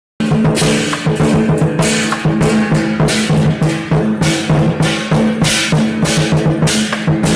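Lion dance percussion: drums beating a fast, dense rhythm with cymbals crashing about twice a second.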